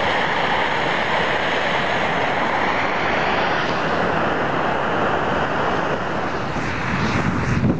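Snowmaking gun blasting snow across the slope: a loud, steady rushing hiss. Near the end, gusts of wind buffet the microphone with low rumbling.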